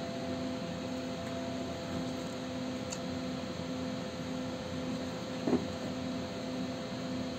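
Steady room hum with a faint electrical drone, with a light click about three seconds in and a brief soft handling sound a little later as the motherboard is turned over.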